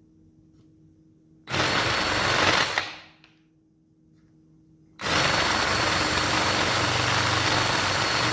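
Electric power tool cutting, in two runs: a short one of about a second and a half starting a second and a half in, and a longer one starting about five seconds in that goes on past the end, with a thin steady whine above the cutting noise.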